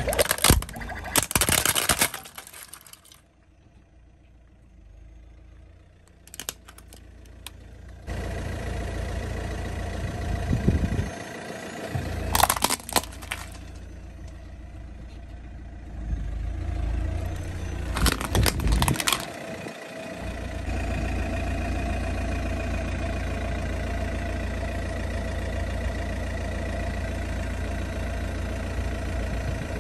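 A car's tyre rolling over plastic toys: plastic cracking and crunching in several short spells, the loudest near the start and about two-thirds of the way through. Between the crushes the car's engine runs low and steady.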